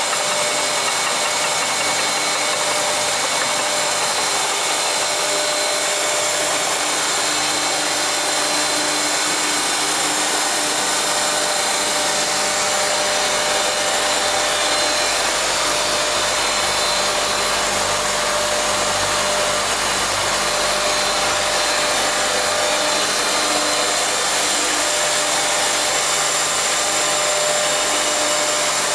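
Leadermac LMC 423C four-sided planer running. Its cutter spindles give a steady mechanical noise with a constant high whine.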